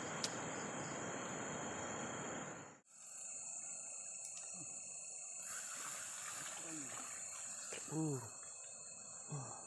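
Night-time crickets and insects trilling in one steady high tone. For the first three seconds a loud even rustling noise covers them, then cuts off suddenly. Later a few faint low voice-like sounds come and go.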